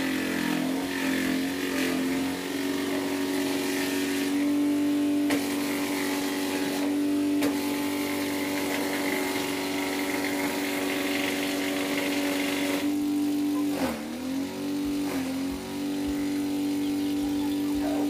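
A small engine running steadily at high speed, its pitch dipping briefly and recovering twice near the end.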